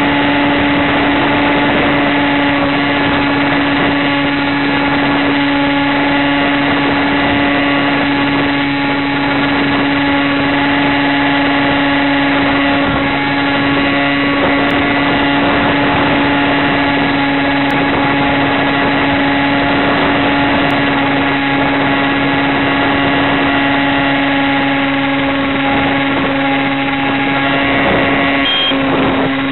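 Electric motor and propeller of a small FPV model plane running at a steady cruise throttle: a constant hum with a whine of overtones over rushing air, its pitch unchanging, with a brief break near the end.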